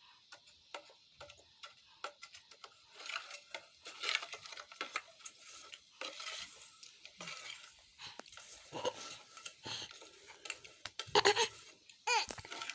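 Scattered light clicks and clatter of small hard objects being handled, with a short louder sound about eleven seconds in.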